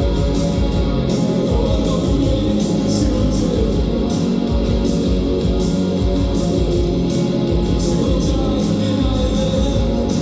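A live rock band playing: guitars and bass over a steady drumbeat with cymbal hits.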